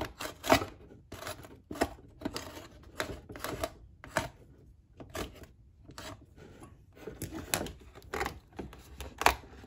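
Cardboard packaging being cut with a box cutter and pulled about by hand: an irregular run of scratchy scrapes and crackles, a little under two a second.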